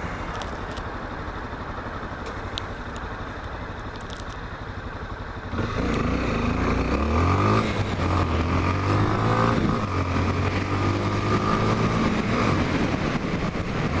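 Honda XRE 300 single-cylinder motorcycle engine running quietly at low throttle, then about five and a half seconds in the throttle opens and it pulls away, its pitch rising before settling into steady running with a few brief dips.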